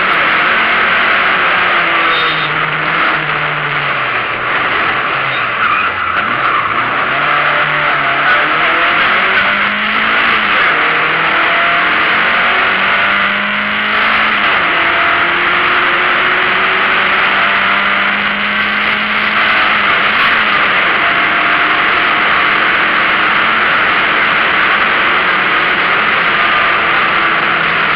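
Opel Ascona A rally car's engine heard from inside the cockpit under hard acceleration, its pitch climbing through each gear and dropping at every shift, over a loud steady hiss.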